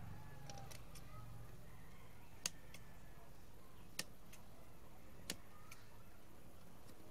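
A few sharp, brief clicks about a second and a half apart over a faint steady hum, from scissors and hands at work on a cloth shirt on a tabletop.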